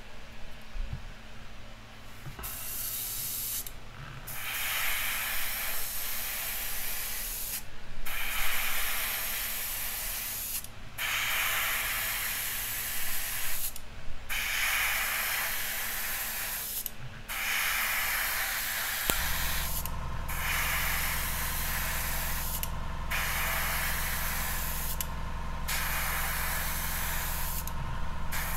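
Airbrush spraying thinned yellow ochre paint in about ten hissing passes, each a few seconds long with a short break between, as the mast is turned after each stroke. A low steady motor hum joins about two-thirds of the way in.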